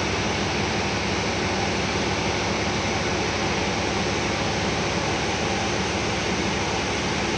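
Steady interior noise of a moving New Flyer Xcelsior XDE40 diesel-electric hybrid bus, its drive and road noise blending into an even sound with no sudden events.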